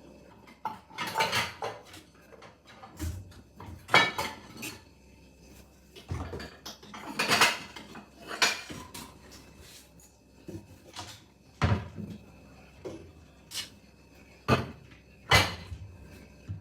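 Dishes and metal utensils clinking and clattering in a dozen or so separate, irregularly spaced knocks, as a bowl is fetched and food is served into it from a pot.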